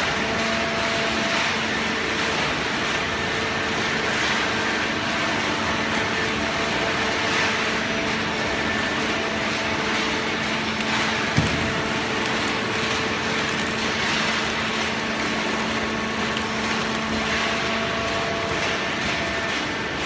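Horizontal hydraulic waste-paper baler running: a steady machine drone with a constant hum at several pitches, and a single sharp knock about halfway through.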